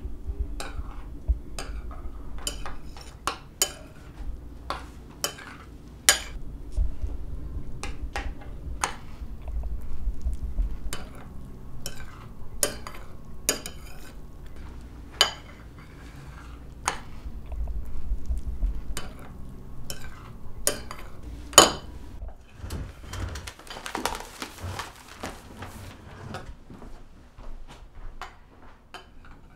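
A spoon clinking against a dish in irregular sharp clinks, roughly one a second, over a low background rumble. Near the end the clinks give way to a few seconds of softer, hissy scraping.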